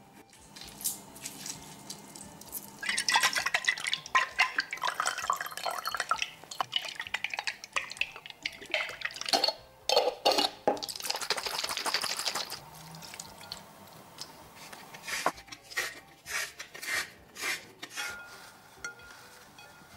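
Oil is poured into a small glass jar for a salad dressing, with drips, splashing and glass clinks in two busy stretches. Near the end there is a run of short separate clicks as salt and pepper are added.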